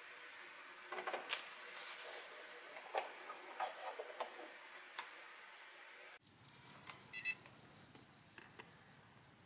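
Scattered light clicks and taps as a foam RC model airplane is handled. After a cut, a quick burst of short electronic beeps comes about a second later from the RC gear being powered up.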